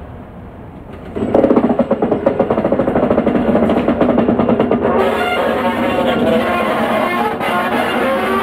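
Class 88 locomotive's Caterpillar C27 diesel engine opening up suddenly about a second in and working hard under load as it passes, a loud continuous drone with a fast pulsing beat.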